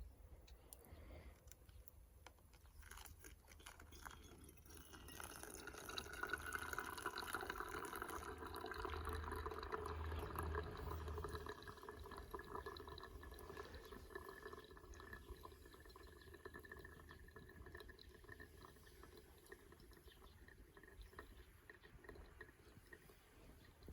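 Hot water being poured slowly from a kettle into a drip coffee filter, the trickle building a few seconds in and tapering off, with small crackles from a wood fire.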